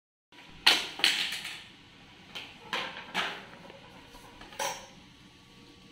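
Hard plastic clacks and knocks as PVC pipe pieces and fittings are handled and knocked together: a quick cluster of sharp clicks in the first second and a half, then a few single knocks spaced out after.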